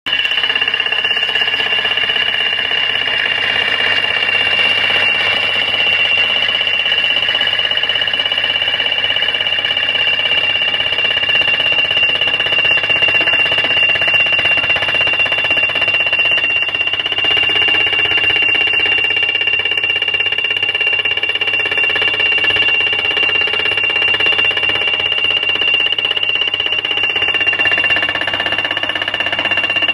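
Vermeer PD10 pile driver's hydraulic hammer driving a steel pile into the ground in rapid continuous blows over its running engine, with a steady high-pitched ringing tone throughout.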